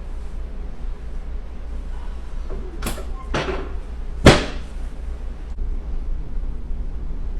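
Three short knocks on a chiropractic treatment table, the last and loudest a sharp thump about four seconds in, over a steady low hum.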